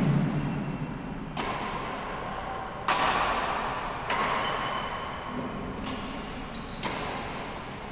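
Badminton rally: a racket strikes the shuttlecock five times, about one to one and a half seconds apart, each hit a sharp crack that echoes in the hall.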